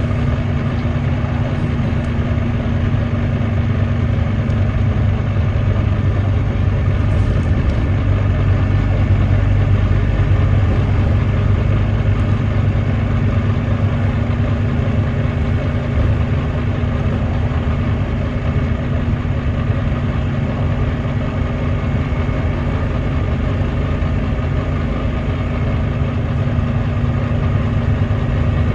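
Volvo D9B 9.3-litre six-cylinder diesel engine of a Volvo B9TL double-decker bus running steadily, swelling slightly about a third of the way in; the engine is one the recordist labels as misfiring.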